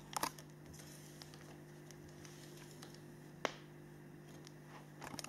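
Quiet room tone with a steady low hum. A few small clicks come just after the start and one sharper click a little past the middle.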